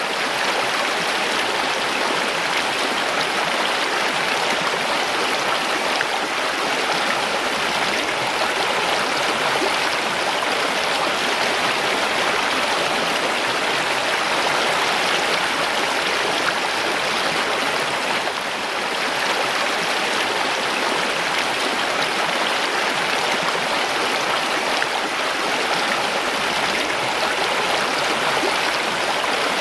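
Mountain stream: water rushing and splashing over rocks in a steady, even flow.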